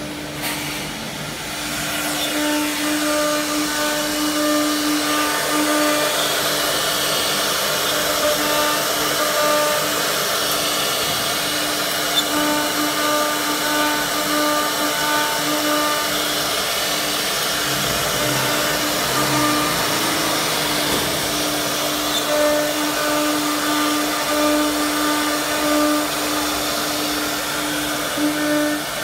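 STYLECNC S2-II nesting CNC router, with spindle and drill block, running. A steady hum sits under a rushing noise, and higher whining tones start and stop every second or two.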